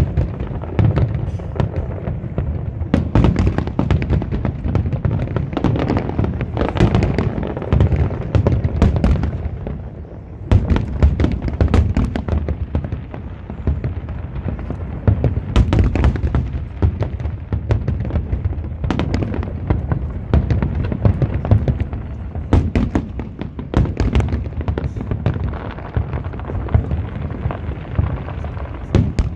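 Aerial firework shells bursting in quick succession: a dense, continuous barrage of booms and crackles, with a short lull about ten seconds in.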